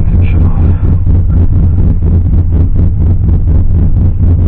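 Cammed Chevrolet Silverado engine idling shortly after a cold start, with a choppy pulsing beat, heard from inside the cab.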